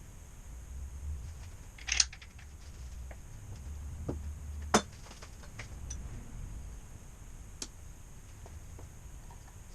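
Sharp metallic clicks and clinks of small metal parts and tools being handled, a few seconds apart, over a low steady hum. The loudest click comes just before the halfway mark.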